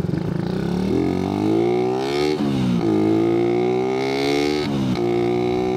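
Suzuki Raider 150's single-cylinder four-stroke engine, breathing through an oversized 30 mm carburetor, accelerating hard under load. Its pitch climbs, drops sharply at an upshift about two and a half seconds in, climbs again, and drops at a second upshift about five seconds in.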